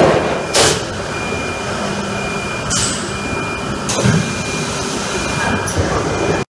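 RP Injection 270 PM-CE PET preform injection moulding machine running: a steady mechanical hum broken by short, sharp hisses and knocks every second or two. It stops suddenly near the end.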